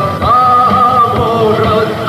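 Rock music: a band playing, with a long held, wavering sung note over steady drum beats.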